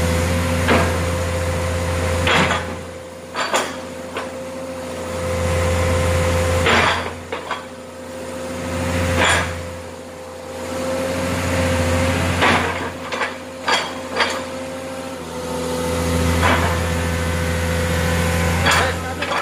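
Komatsu excavator's diesel engine and hydraulics running, a low drone that swells and eases again every few seconds as the grapple is worked, over a steady whine. Sharp metallic clanks ring out about ten times, every second or two.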